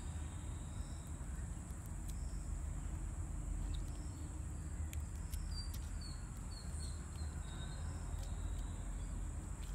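Outdoor ambience of crickets or other insects giving a steady high drone over a low rumble, with a few short high chirps a little past halfway.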